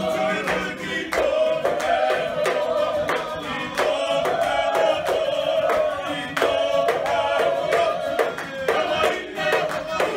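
Māori poi performance: a group singing a waiata together, with a steady beat of sharp taps from the poi being swung and struck in time.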